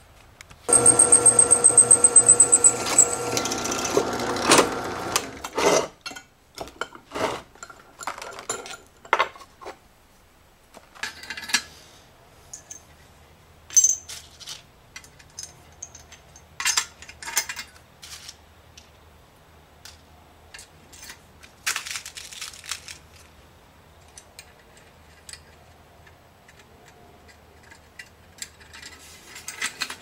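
A loud metallic ringing rattle for the first few seconds, then scattered clinks and clicks of small steel parts, nuts, washers and a galvanized steel pedal plate, being handled on a workbench and anvil.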